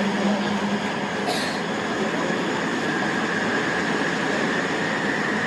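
Sendai Subway Tozai Line 2000-series linear-motor train running through the tunnel, heard from inside the car as a steady rumble of wheels and air. A low hum fades out about half a second in, and a faint high whine that rises slightly in pitch comes in during the second half.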